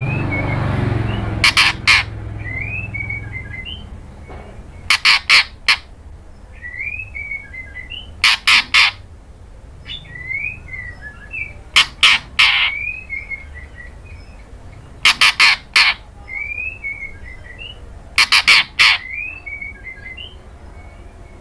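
Female white-rumped shama calling: six bursts of two or three short, loud notes, about one burst every three and a half seconds, with soft, quick twittering chirps in between.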